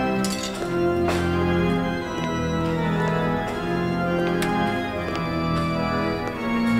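Organ music playing held chords that change every second or so.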